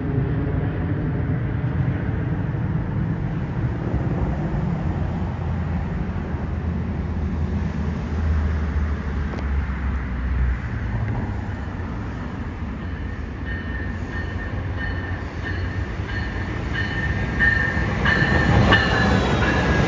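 Passenger train running past: a steady rumble of wheels on rail, with a low drone in the middle stretch. High steady ringing tones come in over the last several seconds.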